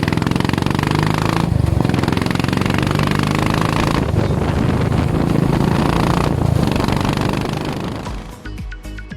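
Royal Enfield Classic 500's single-cylinder 500cc engine running through an aftermarket AEW Goldstar-style exhaust, a loud, even firing beat that breaks off briefly three times. The engine fades near the end as guitar music takes over.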